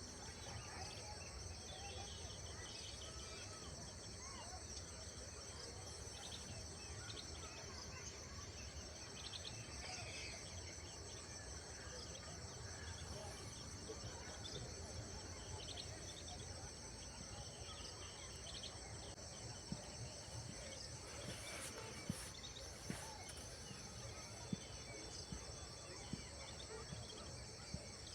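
Steady, high-pitched chorus of insects with faint, scattered bird chirps. A few sharp clicks come in the second half.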